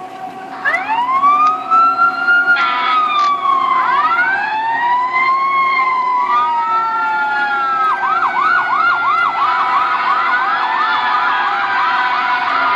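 Recorded fire truck siren played from a cellphone speaker. Starting about a second in, several overlapping wails rise and fall, then about eight seconds in it switches to a fast yelp of about three cycles a second.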